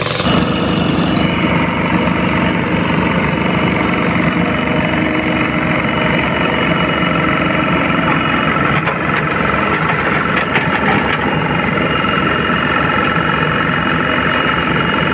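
Heavy diesel construction machine's engine running steadily and loud, with a fast, even throb. A few light clicks come through about two-thirds of the way in.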